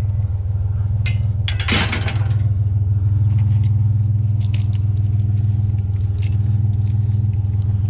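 Pickup truck engine idling steadily, with light metallic clinks and rattles from a small metal-framed toy stroller being handled and a brief clatter about two seconds in.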